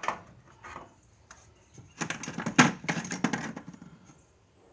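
Metal hand tools clinking and rattling as they are rummaged through and picked up from a toolbox: a sharp click at the start, then a clattering run of knocks for about two seconds.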